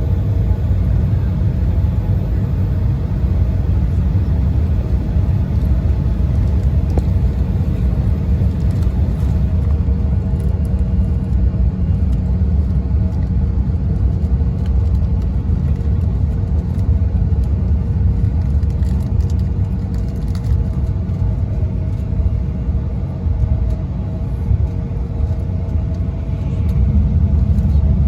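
Cabin noise aboard an Embraer 175 regional jet taxiing in to the gate on idling engines: a steady low rumble with a faint steady hum above it, growing a little louder near the end.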